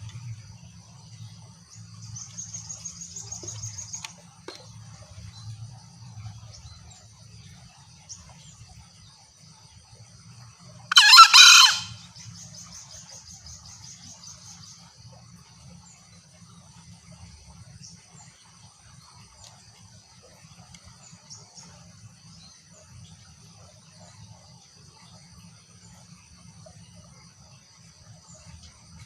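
Green junglefowl giving a single short, harsh crow about a third of the way in, over steady high-pitched insect trilling.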